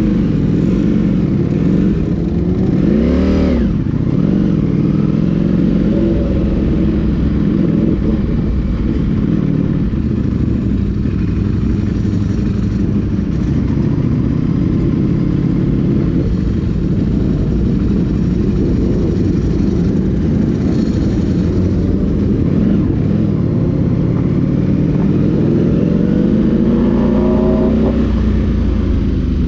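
Ducati Panigale V4 SP's V4 engine running at low speed in first gear, heard from on board, its pitch rising and falling as the throttle is opened about three seconds in and again near the end.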